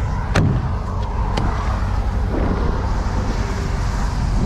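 Steady low rumble of an idling truck engine, with wind buffeting the microphone and two sharp knocks in the first second and a half.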